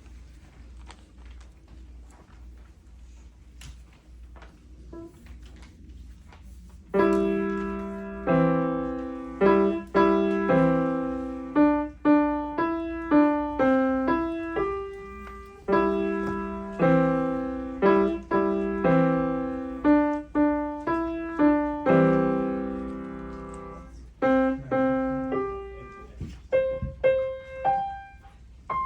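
Faint room noise with a few small clicks, then about seven seconds in a piano starts playing a simple tune, each note or chord struck and left to fade, with low bass notes under the melody.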